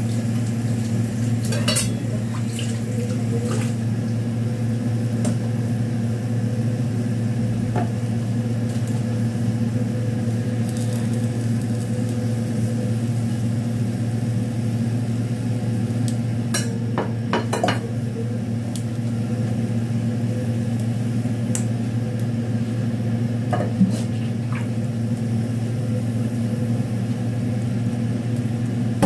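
Metal kitchenware clinking now and then as a stainless steel pot, its lid and a draining tray are handled at a sink, with a few clinks close together near the middle. A steady low hum runs underneath.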